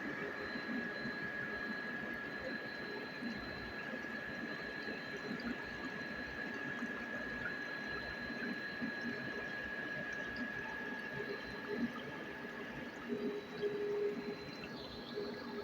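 Machinery running steadily with a constant high-pitched whine over a noisy hum.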